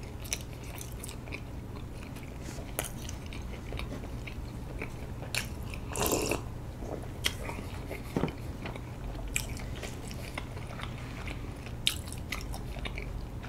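Close-miked mouth sounds of a person chewing sticky rice cake (bandal-tteok): scattered wet clicks and smacks over a low steady hum. About six seconds in there is a louder, brief sip and swallow from a glass.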